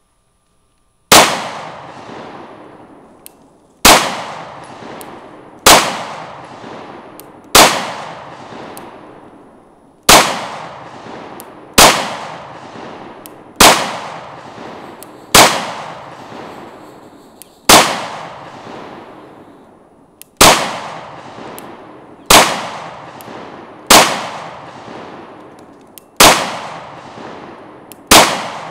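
FN 509 Tactical 9mm pistol fired in slow, deliberate single shots, about one every two seconds, fourteen in all. Each shot has a long echo trailing away.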